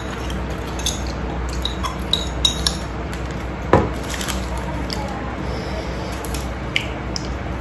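Metal spoon scraping and clinking against a ceramic plate while gathering up the last of the fried noodles: scattered light clinks, with one louder knock about halfway through.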